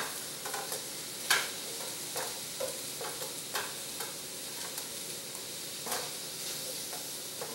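Cauliflower and rice sizzling in a hot stainless-steel frying pan while a wooden spatula stirs them, with a few sharper scrapes of the spatula against the pan.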